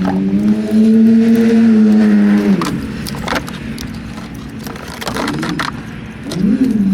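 A car's starter motor spinning the engine in spells: a pitched whine that rises, holds for about two and a half seconds and drops away, a brief blip, then another rising spell near the end. Sharp clicks are scattered through it.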